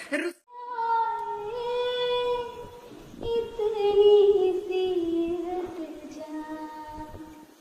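A high voice singing long held notes without clear words, in two phrases; the second phrase sinks slowly in pitch and fades near the end.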